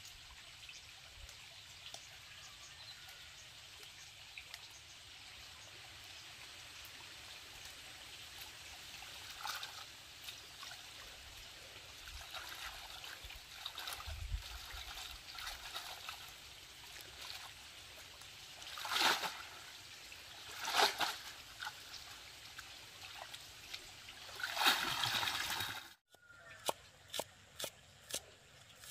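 Stream water trickling as water spinach is washed in a woven basket, with louder sloshes and splashes as the basket is dipped. Near the end, after a sudden break, several quick sharp knocks of a cleaver chopping shallots on a wooden block.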